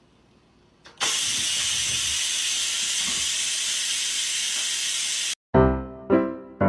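A steady, even hiss, strongest in the high range, that starts about a second in and cuts off abruptly after about four seconds, followed by music with repeated piano-like notes.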